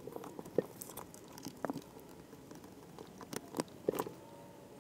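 Scattered light clicks and taps of small laptop parts and a precision screwdriver being handled as an Asus Zenbook is put back together, in sped-up footage.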